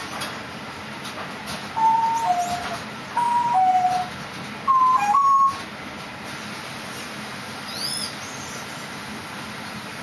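A clear two-note whistled call, a higher note stepping down to a lower one, given three times about a second and a half apart.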